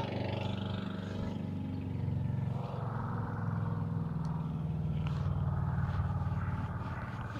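A motor vehicle's engine running with a steady low hum, growing louder about two and a half seconds in and easing off again near the end, as a vehicle passes.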